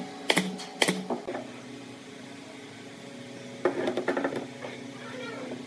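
Pneumatic brad nailer firing two sharp shots into a pine frame near the start, about half a second apart, over a steady background hum. About two-thirds of the way through, a short run of lighter knocks and rattles.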